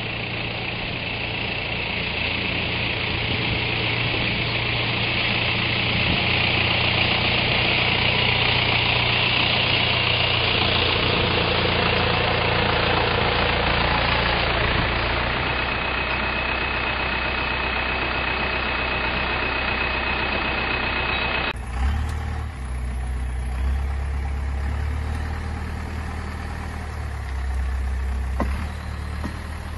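Tow truck engine running steadily with a high whine over it while it tows a pickup on wheel-lift dollies. Partway through, the sound cuts suddenly to a deeper, lower engine rumble as the truck and its load pull away, with a few light clicks near the end.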